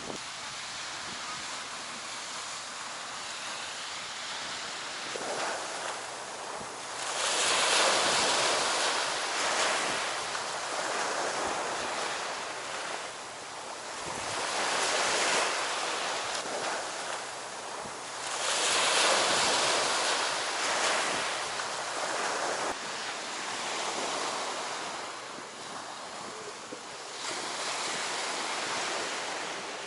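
Sea waves breaking and washing up the shore, swelling and ebbing every several seconds, with three larger surges.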